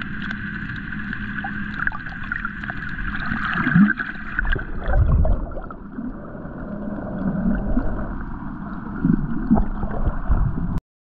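Water moving around an underwater camera: a steady muffled rush with gurgles and small crackles, and a few low swishes. It cuts off suddenly near the end.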